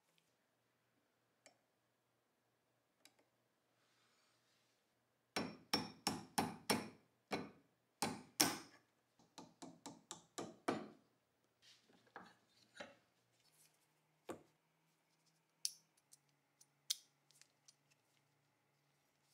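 Small hammer tapping a pin punch to drive a pin in a Tokarev TT-30 pistol held in a vise: a run of about fifteen sharp taps, about three a second, starting about five seconds in. Then a few light, scattered clicks near the end.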